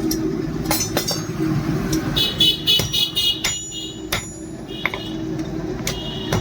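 Irregular sharp metal knocks and clinks over a steady low hum, with a high multi-pitched tone sounding twice, a little after two seconds in and near the end.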